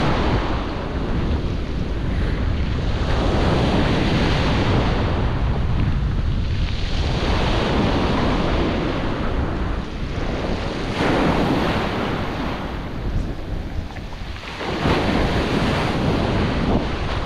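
Small waves breaking and washing up over a wet stone beach, swelling every few seconds, with wind buffeting the microphone.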